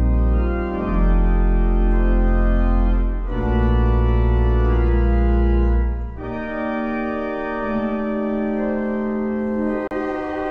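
Church organ playing sustained chords over deep pedal bass notes, changing chord a few times. About six seconds in the pedal bass drops out and the chords go on higher and quieter.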